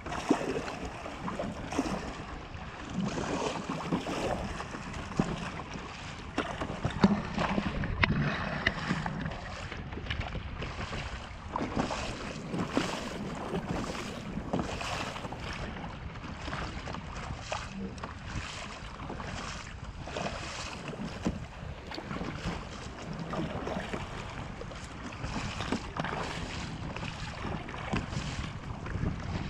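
Kayak paddle blades dipping and splashing in sea water in a run of repeated strokes, with water lapping against the plastic kayak hull and wind buffeting the microphone.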